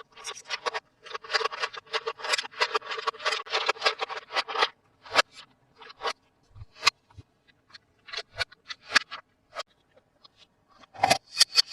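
Toy packaging being handled and opened, with dense crinkling and crackling for the first few seconds. Scattered clicks and taps follow, and the crinkling starts again near the end.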